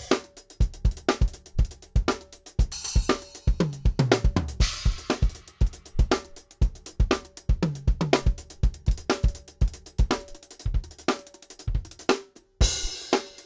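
Drum kit played with 2B hickory drumsticks: a steady beat of bass drum and snare with hi-hat, two tom fills running down in pitch, and crash cymbals. There is a brief break just before a final cymbal crash near the end.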